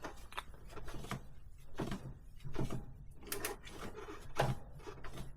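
Cloth rubbing over a tricycle's rear cassette as it is wiped dry, with irregular light clicks and knocks from the metal parts.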